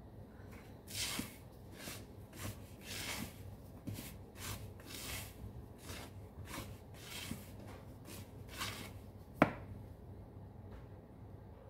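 Silicone spatula stirring dry flour and sugar in a mixing bowl: a run of soft scraping strokes, roughly one or two a second, then a single sharp knock near the end.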